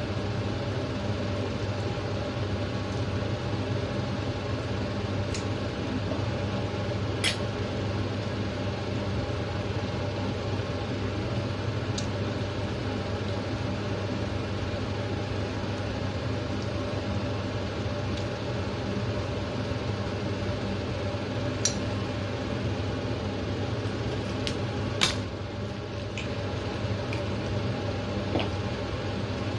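Steady low mechanical hum, like a fan or kitchen appliance running, with a handful of small sharp clicks and taps as raw chicken wings are handled and deboned over a steel bowl, the loudest about 25 seconds in.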